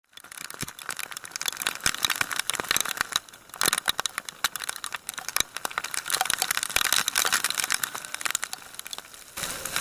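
Rain striking the camera: a dense, irregular crackle of drop impacts on the housing and microphone, easing briefly a little after three seconds and again near the end.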